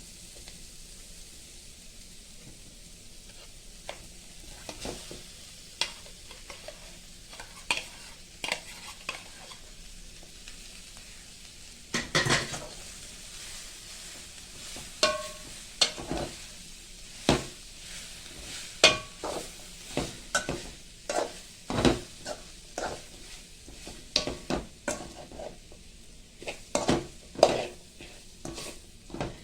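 Food sizzling in hot oil in a pan, a steady hiss. From about twelve seconds in, a metal spoon or spatula stirs and scrapes the pan, with frequent clinks and knocks against the metal.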